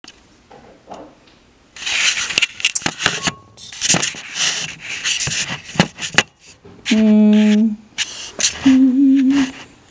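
Camera handling noise: rustling, scraping and knocks as the camera is moved about and refocused, followed by two short pitched tones near the end, the second one wavering.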